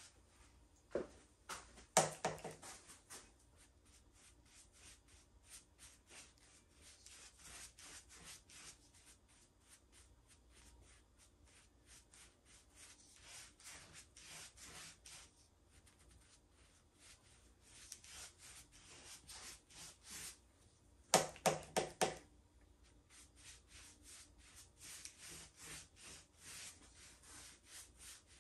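A wide paintbrush stroking back and forth over the wet coat on a tabletop: a run of soft, quick swishes. Two brief louder noises come about two seconds in and again around twenty-one seconds.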